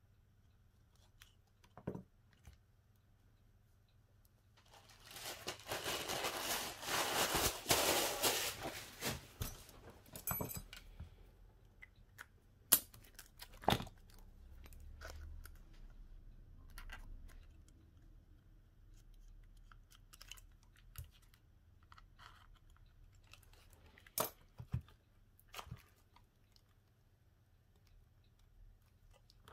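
Small clicks and taps from handling a smartphone and its parts during a screen repair. About five seconds in comes a stretch of tearing noise lasting around five seconds, the loudest sound here, typical of peeling adhesive or plastic film.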